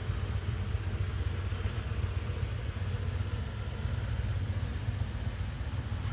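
Steady roar of air coolers running at full blast, a constant low fan rumble with a hiss over it.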